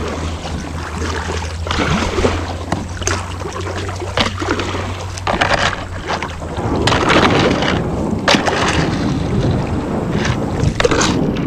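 Kayak paddle strokes splashing while fast, shallow river water rushes against the hull as the kayak is forced upstream over a shallow stretch. Uneven splashes throughout, louder and busier from about halfway on.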